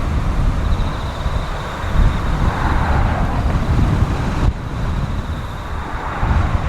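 Gusty wind buffeting the microphone, over a steady rushing noise that swells and fades twice.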